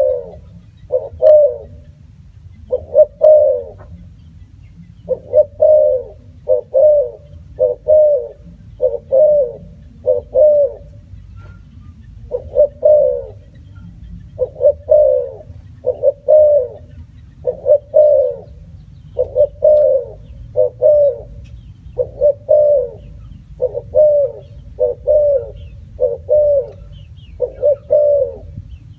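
Spotted dove cooing: a steady series of low coos about a second apart, falling into short phrases of a few notes with brief pauses between them.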